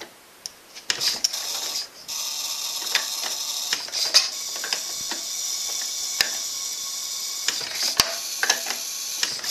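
1917 Ford Model T four-cylinder flathead engine catching after hand-cranking about a second in, faltering briefly, then running steadily with scattered sharp pops and clicks.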